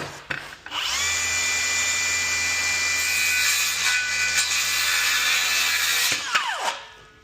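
Bosch rear-handle circular saw spinning up about a second in, running at a steady high whine through a cut in wood, then winding down with a falling whine near the end. It is cutting easily, like butter, on a new blade.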